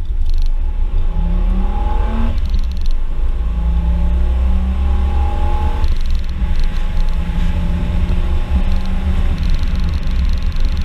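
Ford Capri Mk2 3.0's Essex V6 engine accelerating, heard from inside the cabin with a heavy low rumble. Its pitch climbs and drops sharply twice, about two seconds in and again about six seconds in, then holds fairly steady.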